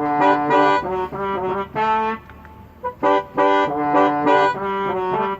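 Sampled banda brass section played from a keyboard, blowing short, clipped chord phrases, with a brief pause about halfway through.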